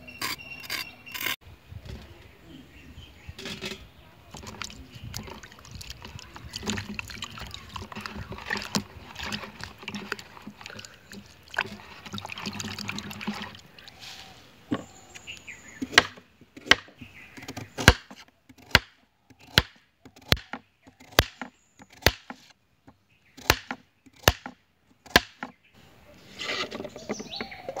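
Kitchen knife scraping the skin off a carrot, then chopping it into rounds on a wooden cutting board: about a dozen sharp knocks, a little over one a second, starting about halfway through.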